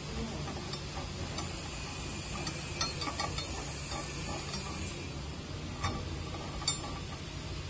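Scattered light metallic clicks and ticks from hands turning a tool in the adjustment screws of a press fixture, over a steady low machine hum.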